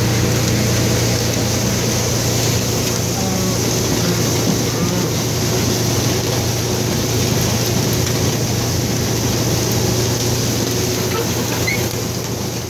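John Deere 2940 tractor engine running at a steady speed, driving a feed mixer's unloading auger as ground feed pours into a cattle feeder. A constant low drone with mechanical clatter and rush on top.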